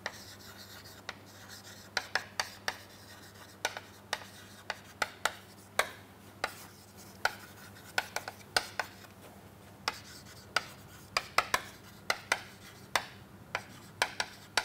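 Chalk writing on a chalkboard: irregular sharp taps and short scratches as each letter and word is written, about two or three a second.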